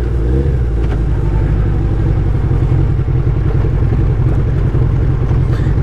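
Suzuki Hayabusa's 1300 cc inline-four engine running steadily at low revs as the motorcycle rolls slowly.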